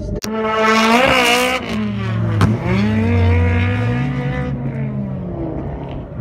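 A drift car revving hard through a slide, its engine note climbing and falling while the tyres squeal for about a second. A sharp click comes about two and a half seconds in, and the engine fades as the car pulls away.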